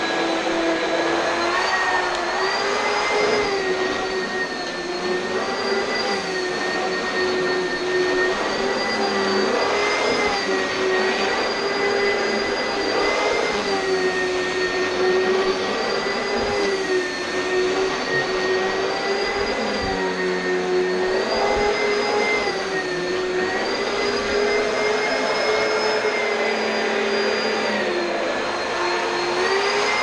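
Oreck XL2 upright vacuum cleaner running steadily, its motor whine rising and dipping slightly in pitch as it is pushed across wood floor and rugs.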